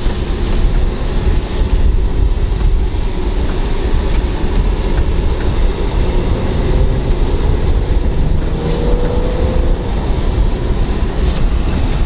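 Steady low road and engine rumble heard from inside a BMW X5 E70's cabin while it is being driven.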